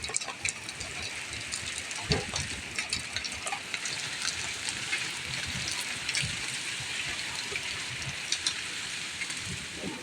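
Hail and rain falling: a steady wash of rain with many sharp ticks of hailstones striking hard surfaces, and one duller knock about two seconds in.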